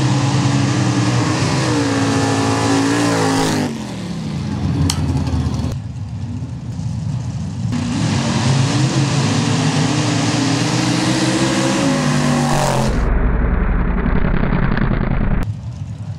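Modified sand drag racers' engines running loud at the start line, then revving up and accelerating hard as they launch, their pitch rising. The sound cuts abruptly between runs, and near the end there is a stretch of heavy low rumble.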